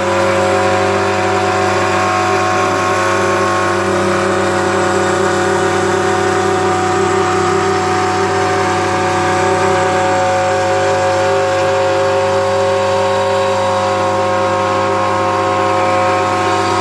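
A 500 W ER11 spindle motor on a desktop CNC mill (Sienci Mill One), running at about half speed, drives a 3 mm bit that cuts a groove into a wooden board. It makes a steady whine of several held tones with a rough cutting hiss over it.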